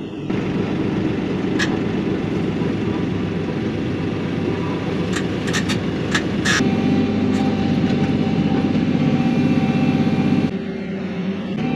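Kioti NS6010 compact tractor's diesel engine running, with a few sharp metallic clanks in the middle. About six and a half seconds in the engine revs up and grows louder, then drops back to a lower note near the end.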